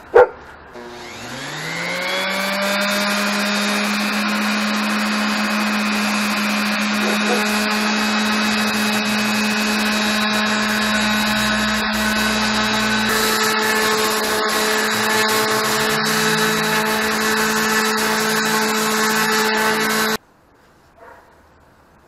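Corded random orbital sander starting up with a rising whine, then running steadily while it sands a carved wooden block, until it cuts off abruptly near the end. A short loud sound comes just before the motor starts.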